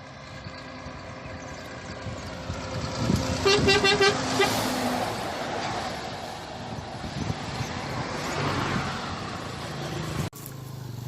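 Truck on the road with its horn sounding a quick run of short toots about three and a half seconds in, over vehicle noise that swells and fades. The sound cuts off abruptly near the end.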